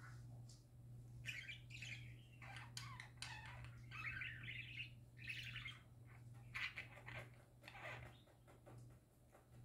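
Budgerigars (parakeets) softly chattering and warbling: irregular runs of quick chirps with small sharp clicks mixed in.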